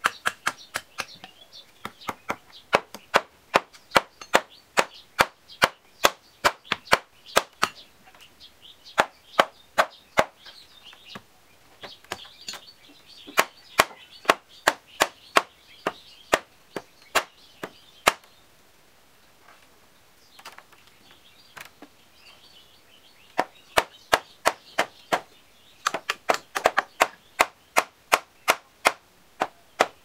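Claw hammer striking wood in runs of sharp blows, about two to three a second, pausing for a few seconds past the middle.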